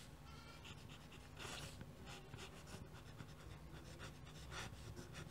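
Faint scratching of a fountain pen's nib on paper: a few short, quick strokes as a cursive signature is written.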